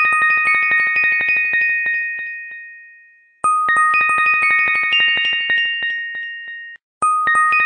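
Background music: a short bright chime-like melody of bell tones over a fast ticking pulse. It loops, restarting about three and a half seconds in and again near the end, with a brief cut to silence before the second restart.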